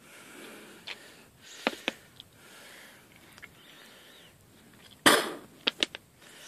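Quiet room with a few faint clicks, then a short, loud breath-like burst about five seconds in, followed by a few more clicks: breathing and handling noise from someone holding a phone close to his face.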